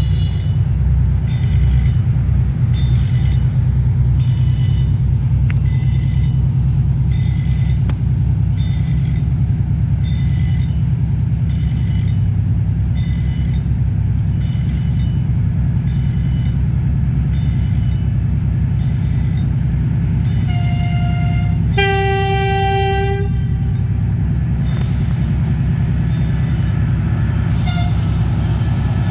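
Freight train passing a level crossing: a loud, steady low rumble of the locomotive and wagons, with the crossing's warning signal sounding in a repeating high beep about every 0.7 s. About three-quarters of the way through there is a short higher toot, then a blast of the train horn lasting just over a second.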